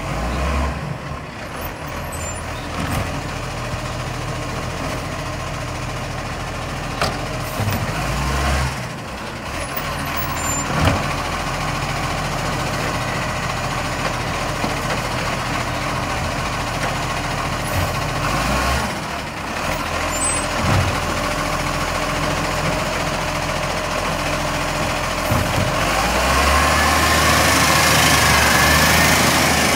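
Iveco Acco side-loading garbage truck running steadily while its automated arm lifts and tips wheelie bins, with occasional clanks and hisses. It grows louder near the end as the truck moves past close by.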